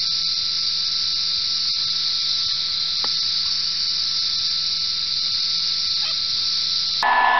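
Electric heat gun running steadily, its fan blowing with a high hiss and a thin steady whine. It gets a little louder near the end.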